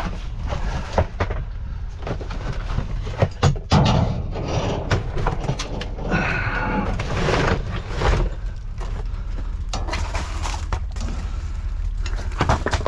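Junk being rummaged through and shifted in a dumpster: irregular knocks, clanks and rustling as items are moved to reach a brass-fitted piece, with a steady low wind rumble on the microphone.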